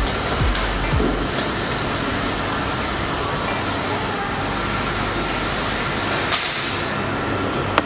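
WLtoys V929 Beetle toy quadcopter's small motors and propellers whirring steadily, with a brief rush about six seconds in and a sharp click near the end.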